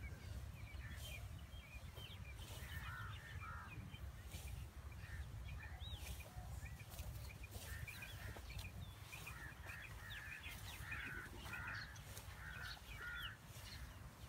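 Several birds calling throughout: short repeated calls and quick rising chirps, some in clusters of two or three, over a steady low rumble.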